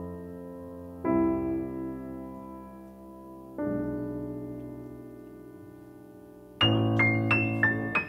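9-foot German Steinway concert grand piano played: soft, slow chords that ring and fade, then about six and a half seconds in a loud, fast passage of quick notes begins.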